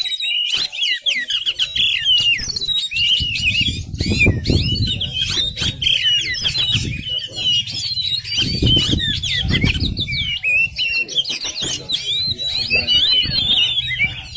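Oriental magpie-robin (kacer) singing a fast, varied song of high chirps and whistles. Low thumps and rustles come and go under it, loudest about four seconds in and again about nine seconds in.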